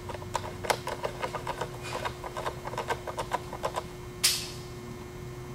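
Speed handle spinning a bolt down on a ZF 5HP24 automatic transmission's valve body, giving a quick run of light metallic clicks, about six a second, for three to four seconds. One short, louder noise follows a little after four seconds. The bolt is being run in by hand rather than with an impact gun.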